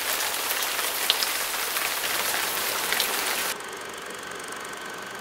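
Rain-like sound effect: a dense, steady hiss with a few sharp drop-like clicks. It cuts off abruptly about three and a half seconds in, leaving a quieter steady hum with a faint steady tone.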